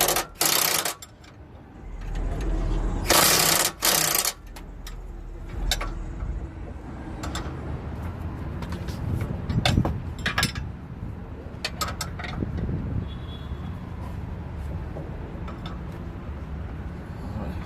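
Impact gun run in two short bursts near the start, driving home suspension bolts on a lower control arm. Scattered clicks and clinks of hand tools and sockets follow.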